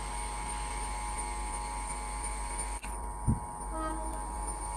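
WAP-7 electric locomotive hauling a passenger train on its approach: a steady hum, with a single low thump about three seconds in.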